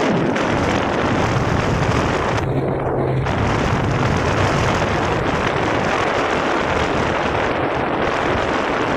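Steady, loud wind noise buffeting the microphone on a moving jet ski, with the personal watercraft's engine and water rush underneath.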